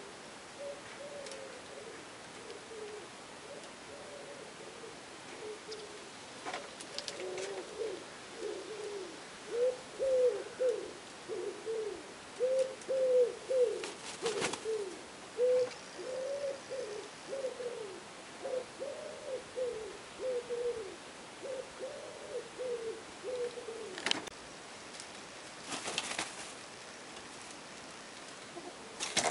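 Domestic hens making low, soft clucking calls, many short calls one after another, densest midway. A few sharp knocks or clicks come in the second half.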